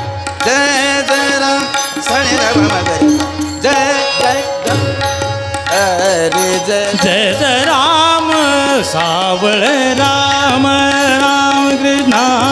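A male voice sings a devotional Marathi bhajan melody in fast, ornamented runs over a steady held drone. Tabla strokes accompany the singing throughout.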